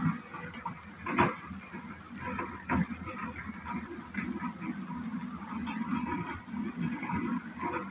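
Steady high-pitched insect drone with faint scattered noises, broken by two sharp knocks about a second in and near three seconds in.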